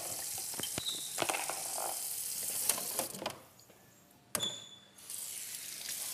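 Kitchen clean-up clatter: dishes and utensils clicking and knocking over a steady hiss. It drops away about three seconds in and comes back with a sharp click about a second later.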